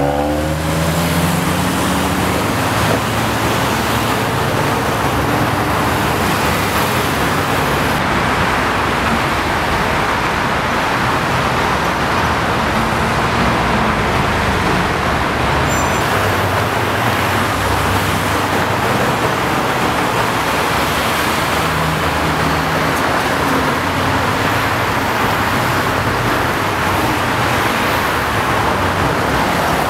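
Steady traffic noise of a busy multi-lane freeway: an even wash of tyre and engine sound from many cars passing.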